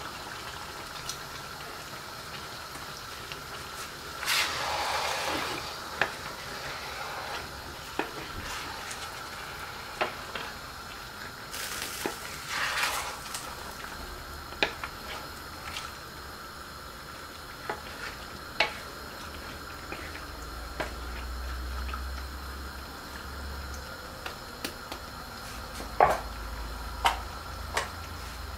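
Duck karahi sizzling and bubbling in an iron karahi over a gas flame, a steady hiss. A wooden spatula stirs the meat, giving scattered sharp knocks against the pan, the loudest near the end, and longer bouts of stirring about four and twelve seconds in.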